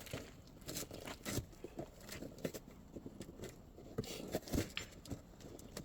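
Irregular crackles, clicks and scrapes from a wood fire being lit and fed with newspaper and wood.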